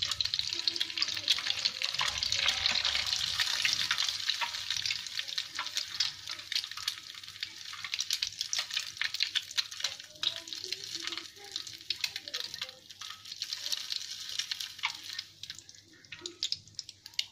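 Beaten egg deep-frying in plenty of hot oil in a wok, sizzling and crackling steadily as it is rolled onto a bamboo skewer. The sizzle is loudest in the first few seconds and dies down near the end as the rolled egg is lifted out of the oil.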